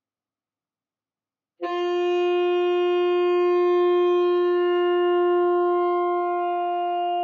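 Saxophone long tone, starting about a second and a half in and held steady on one note with a full set of overtones. The player is adjusting embouchure and airstream to shape the timbre toward a professional's sound.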